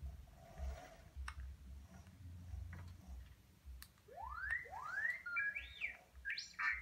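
Full-size R2-D2 replica droid's speaker playing its electronic beeps and whistles. About four seconds in come two quick rising whistles, then a run of warbling chirps and beeps. A few faint clicks come before them.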